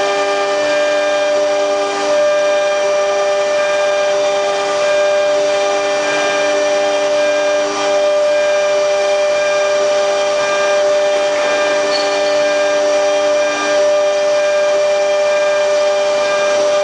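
QS6090 CNC router running, its motors giving a loud, steady whine made of several held tones, a few of which shift or drop out now and then as the machine moves.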